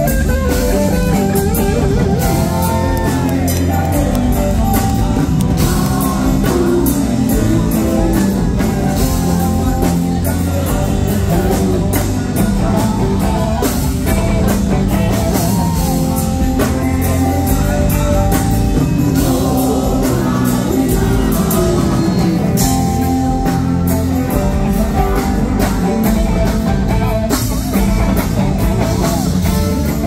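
Live rock band playing: electric guitars over drums and congas, with a man singing.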